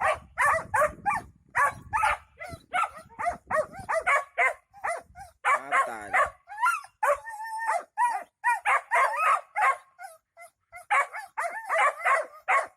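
Dog barking and yipping in quick short calls, several a second, with a brief lull about ten seconds in.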